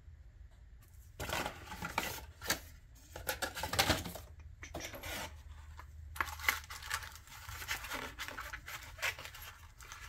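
Plastic and anti-static bag packaging rustling and crinkling as it is handled, with scattered small clicks and taps of parts and cardboard being moved.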